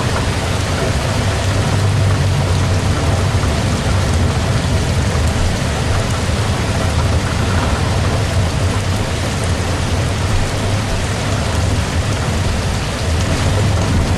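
Heavy rain falling steadily, with a deep, constant low rumble under the hiss.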